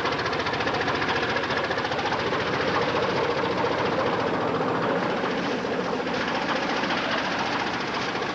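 Bulldozer engine running steadily, with a rapid, even knocking pulse.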